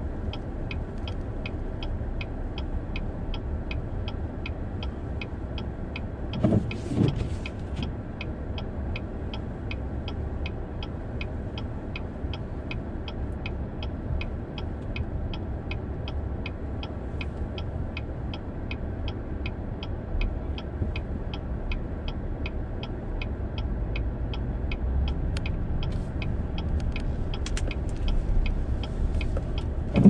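Car turn-signal indicator ticking evenly, about two ticks a second, over the low hum of the idling engine heard from inside the cabin. A brief louder sound comes about seven seconds in, and the engine rumble rises near the end as the car pulls away.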